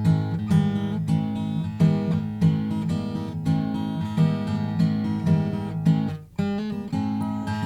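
Gibson J-45 Deluxe acoustic guitar with rosewood back and sides, played as a run of ringing chords with steady new attacks. There is a short break about six seconds in before the playing resumes.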